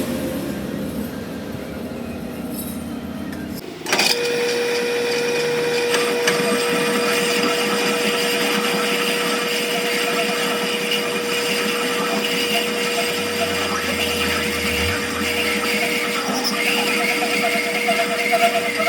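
Workshop power tool running steadily with a constant hum and a harsh hiss. A different, lower mechanical sound stops abruptly about four seconds in, where the tool sound begins.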